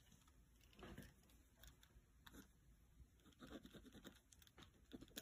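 Faint scratching of a pencil drawn over wax crayon on sketchbook paper, in short strokes that come more often in the second half.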